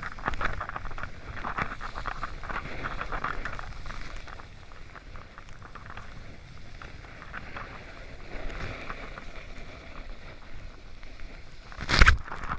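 Snowboard sliding and scraping over hard-packed snow, an uneven crackling hiss that swells and fades, with wind on the microphone. A short, loud thump near the end.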